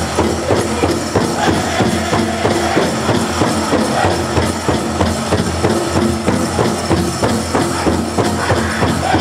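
Powwow drum group singing a chicken dance song, the large drum struck in a steady, even beat under the voices.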